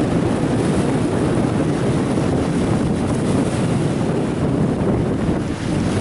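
Wind noise on the microphone over the steady wash of ocean surf breaking on the shore.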